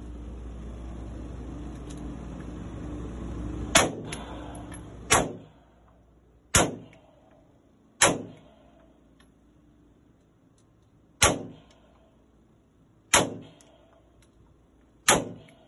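Seven single pistol shots fired one at a time in an indoor range, one and a half to three seconds apart, each a sharp crack with a short echoing tail. A steady rushing noise underlies the first few seconds and fades out after the second shot.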